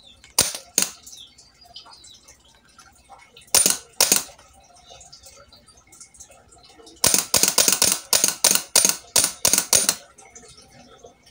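Sharp metallic knocks and clinks from a removed car starter motor being worked on by hand: a few single knocks, then a quick run of taps, about four a second, for three seconds near the end.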